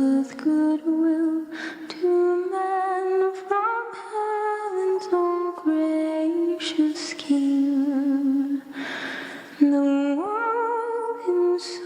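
A single voice singing a slow, unaccompanied melody, holding notes with slight vibrato and gliding between them. Audible breaths come between phrases, one near the middle.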